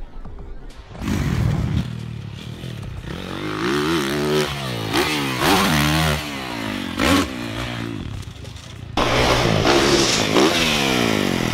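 Dirt bike engines revving up and down in quick, repeated rising and falling sweeps. The sound changes abruptly about a second in and again near nine seconds, as a different bike takes over.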